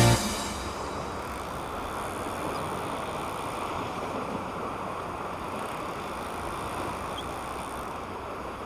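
Rock music cuts off right at the start, leaving a steady rushing seaside ambience of wind and water at the shoreline.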